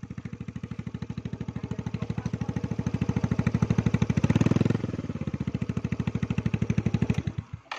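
Exhaust note of a Yamaha Mio GT scooter's single-cylinder four-stroke engine through a short aftermarket Pro Liner muffler fitted with a dB killer silencer insert. It runs steadily, rises with a throttle blip about four seconds in, settles back, and cuts off shortly before the end.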